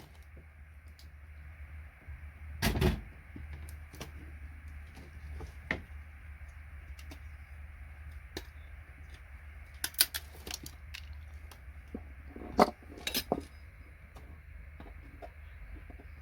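Small metal scrap connectors and pliers being handled, giving scattered clicks and clinks with a louder knock about three seconds in and a cluster of clinks past the middle, over a steady low hum.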